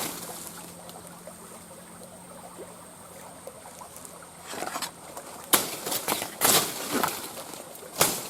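Water splashing and sloshing in several short, sharp bursts from about halfway on, over a quiet outdoor background with a faint steady high tone.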